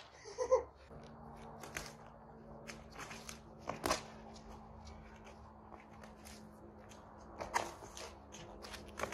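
Sneakers scuffing and shuffling on concrete during boxing footwork, with irregular short slaps and scuffs as the boxers move and throw punches in gloves, the sharpest ones about four seconds in and near the end.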